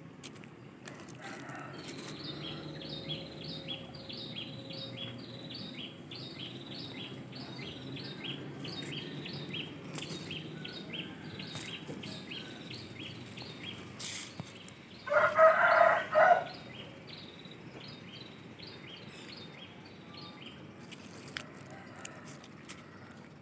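A rooster crows once, about fifteen seconds in, the loudest sound here. Under it, a high chirp repeats about three times a second for most of the time, over a steady low hum.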